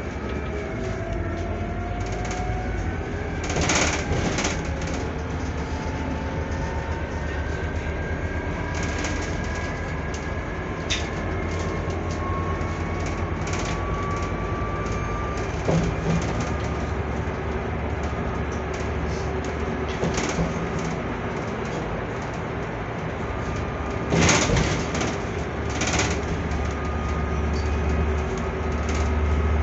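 Inside a Scania Citywide city bus with a compressed-natural-gas engine and ZF Ecolife automatic gearbox, under way: a steady low rumble of engine and road with a driveline whine that rises slowly in pitch several times as the bus gathers speed. A few loud rattling knocks from the body over bumps, two close together about three-quarters of the way through.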